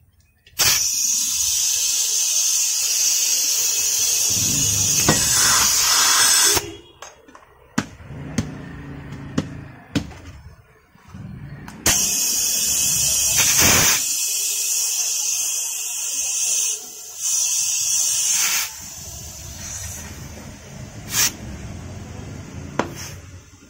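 Compressed air hissing from an air-line chuck as a scooter's tubeless tyre is inflated, in two long stretches of about six seconds each, with short clicks and knocks between and after.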